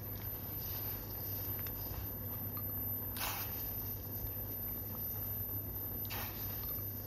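Red wine with citrus slices and spices simmering in a pot, bubbling faintly, with two brief splashes about three and six seconds in as strips of orange peel are dropped in.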